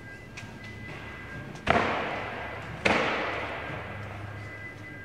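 Two heavy crashing impacts of demolition work, about a second apart, each echoing and fading slowly in the large warehouse: drywall and wall studs being knocked down or dropped during the tear-out.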